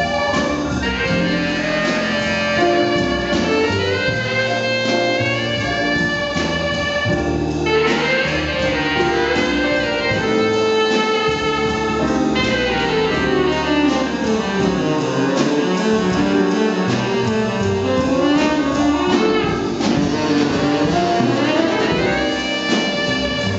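Live jazz band playing a slow tune: saxophone leading the melody in long held, bending notes over grand piano, upright bass and drums.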